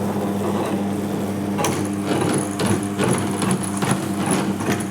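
Electric grinder grinding soaked urad dal into vada batter: a steady motor hum, with a run of quick knocks and rattles starting about a second and a half in.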